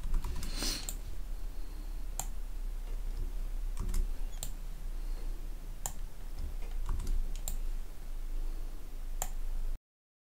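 Computer keyboard and mouse clicks from copy-paste shortcuts and dragging boxes into place: scattered single clicks about a second apart over a faint low hum. The sound cuts off abruptly shortly before the end.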